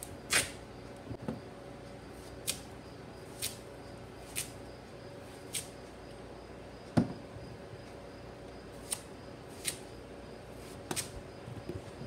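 Kitchen knife cutting raw sweet pumpkin into cubes on a metal tray, its blade clicking sharply against the tray about once a second, with one heavier knock about seven seconds in.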